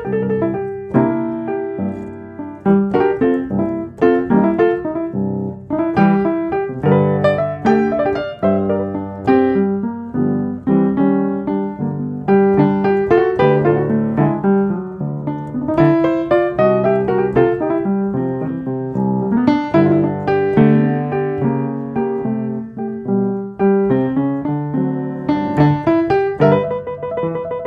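Background piano music, a continuous run of notes and chords.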